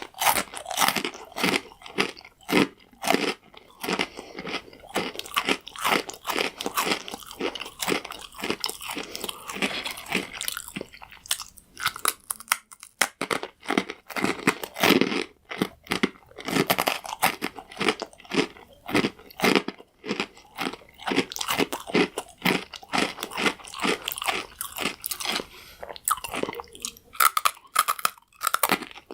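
Close-up crunching and chewing of hard, crunchy croutons, bite after bite in quick crackly crunches, with a brief pause about twelve seconds in.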